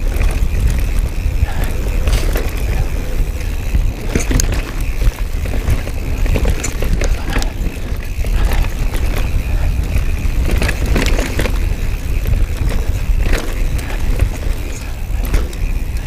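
Giant Trance 2 mountain bike being ridden on a trail: wind buffets the action-camera microphone with a constant low rumble, and the tyres and frame rattle with frequent sharp knocks.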